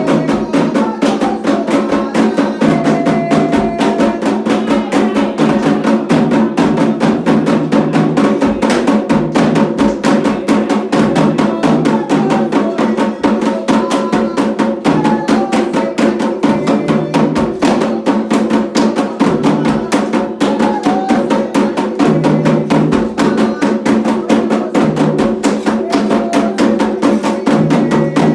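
Candomblé atabaque hand drums playing a fast, continuous ceremonial rhythm of dense, even strokes.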